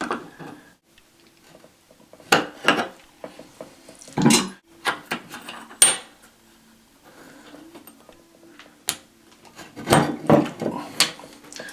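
Irregular metallic clinks and scrapes of brass fittings and tools being handled as the nuts under a wash basin are undone, in scattered groups of a few knocks.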